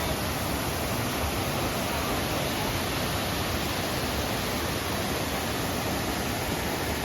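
Steady rushing of a waterfall, an even roar of falling water with no changes.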